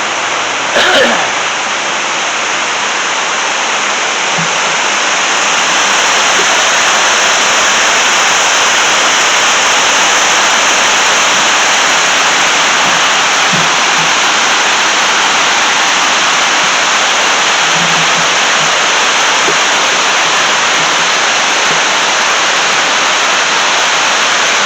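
Water rushing steadily over a small hydroelectric dam, growing louder about five seconds in.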